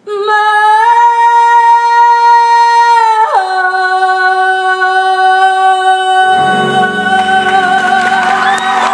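A woman's singing voice comes in suddenly and holds a long, steady high note, stepping down to a lower held note about three seconds in. Low accompaniment joins near six seconds, and crowd cheering starts to swell under the note near the end.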